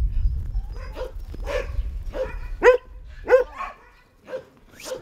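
Dogs barking, a run of short barks about two a second.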